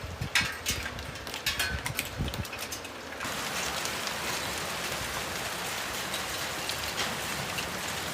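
Storm noise from amateur footage: irregular crackles and low knocks for about three seconds, then, after a sudden cut, a steady rushing hiss like heavy rain or wind.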